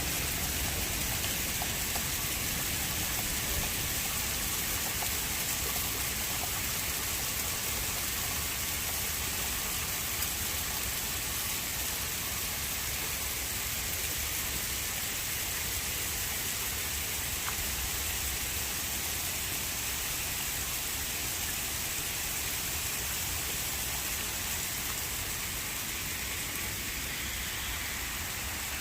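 Steady rain falling, an even hiss with no distinct hail strikes.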